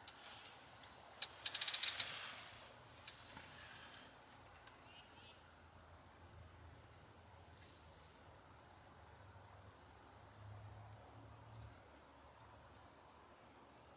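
Small birds giving short, high, thin chirps scattered throughout, over a faint low hum. About a second and a half in comes a quick rattle of clicks, the loudest sound.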